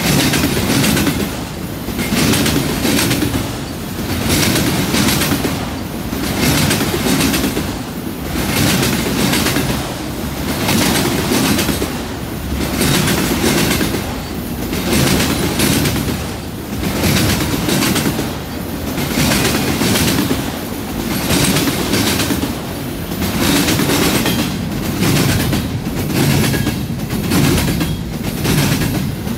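Freight train cars rolling past at speed: steel wheels clicking and clacking over the track in a steady rhythm over a running rumble, swelling and easing about every two seconds as the cars go by. The cars are autorack car carriers, giving way to double-stack container well cars near the end.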